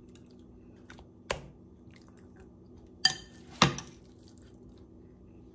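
A spoon clinking against a bowl while scooping stuffing: three sharp clinks, the last two close together about three seconds in. A low steady hum runs underneath.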